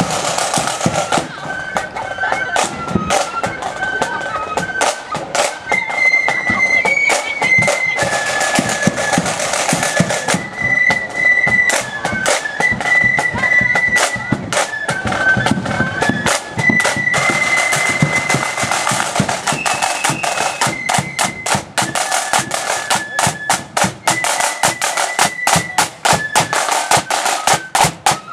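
Marching flute band playing a march: a massed flute melody of held and stepping notes over fast, continuous side-drum strokes.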